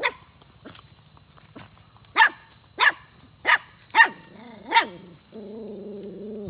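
A young puppy barking: one sharp bark at the start, then five sharp barks in a row about half a second apart from about two seconds in.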